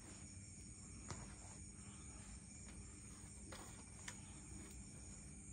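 Faint, steady trilling of crickets, with a few soft clicks and knocks.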